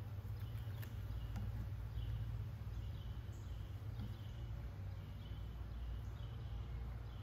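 Low, steady hum of honeybees around an open hive, with a bird chirping over and over in the background.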